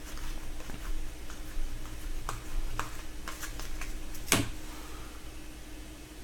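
Hockey trading cards being handled and flipped through by hand, with light scattered clicks of the card edges and one sharper click about four seconds in.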